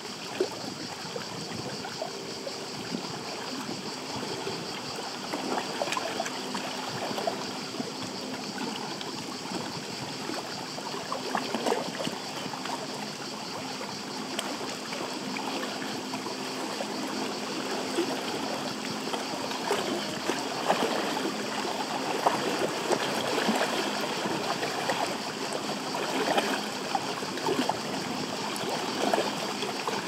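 Small waves lapping at the lakeshore: an irregular trickling and gurgling made of many little splashes, over a steady high-pitched hum in the background.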